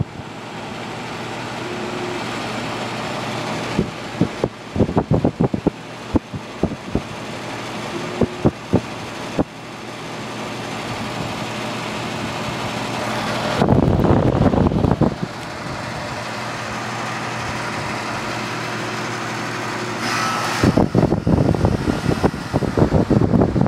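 1995 Miller 3.5-ton central air conditioner running steadily, its General Electric condenser fan motor humming under a constant rush of air. Wind buffets the microphone in gusts several times, loudest about fourteen seconds in and near the end.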